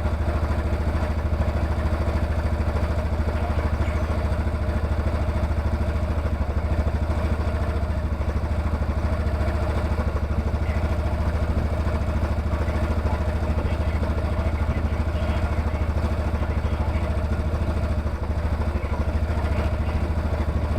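Rhino side-by-side's engine idling steadily, kept running after a no-start that was blamed on the starter relay.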